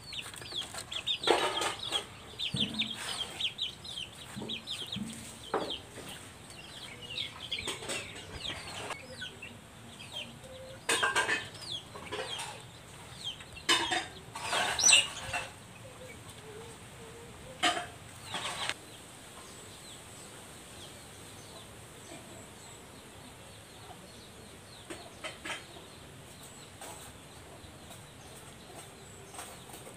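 Chicks peeping in quick high chirps among clucking chickens, busiest in the first several seconds. A few louder sudden noises come in the middle, then only faint scattered calls remain.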